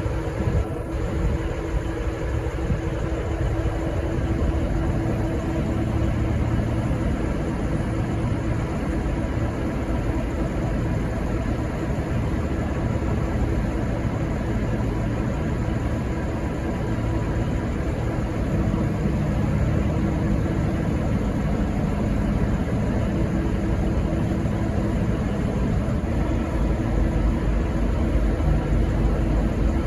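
Diesel train engines idling at a station platform: a steady rumble with a constant humming tone. A deeper engine note joins about two-thirds of the way in.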